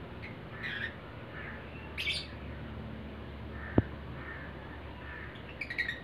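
Lovebirds giving short, harsh squawking chirps: a few single calls, then a quick cluster near the end. One sharp click a little past the middle.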